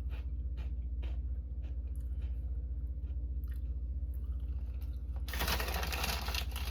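Kettle-cooked potato chips being chewed with scattered crunches, over a steady low electrical hum, with a louder burst of crackling noise about five seconds in.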